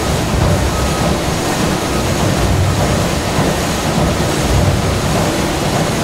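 Steady, loud rumbling noise with no distinct events, heaviest in the low end.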